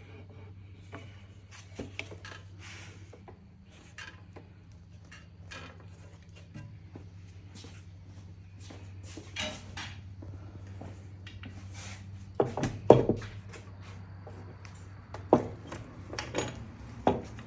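Scattered clinks and knocks of aluminum bar clamps being handled and set against the glued-up tabletop boards, over a steady low hum. The sharpest knocks come in a cluster about twelve seconds in and again near the end.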